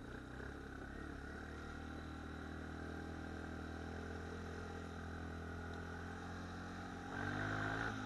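ATV (quad) engine running steadily at low speed on the trail. Near the end the engine speeds up, louder and rising in pitch as the throttle opens.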